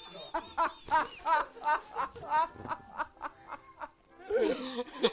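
Men laughing hard in a rapid, cackling run of short high-pitched ha-ha bursts, about three a second, with a louder, breathier laugh about four seconds in.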